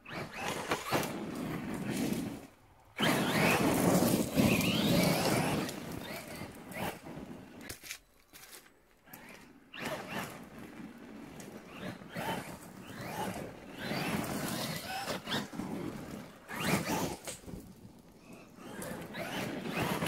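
Traxxas Maxx electric RC monster truck driving hard over a loose gravel and dirt track: tyre and gravel noise in loud, uneven bursts, with short drops in between and a sudden loud return about three seconds in.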